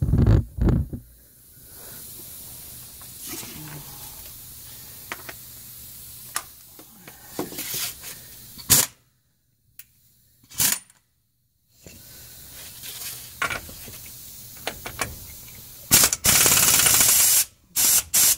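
Campbell Hausfeld air impact wrench with a 30 mm impact socket run on the front differential pinion nut: a loud, even blast of about a second and a half near the end, then a shorter burst, after some handling knocks.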